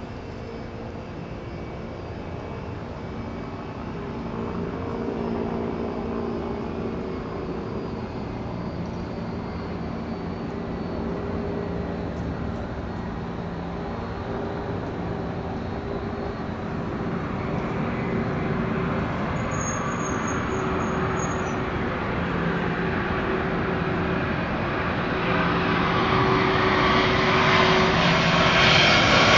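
Airbus A340 four-engine jet airliner on final approach to land, its engine noise growing steadily louder as it comes in low overhead. Steady droning tones sit under a rushing sound that swells strongly over the last several seconds.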